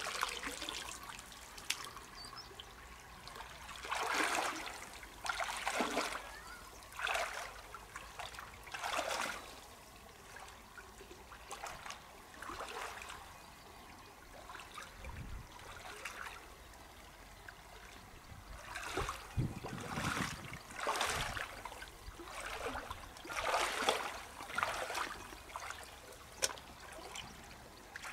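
Shallow river water trickling, with irregular sloshing and splashing every second or two as the water is stirred.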